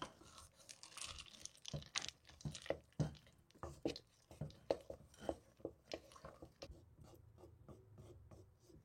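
Spoon or spatula stirring chocolate chips into thick banana bread batter in a bowl: soft, irregular scrapes and clicks, a few a second.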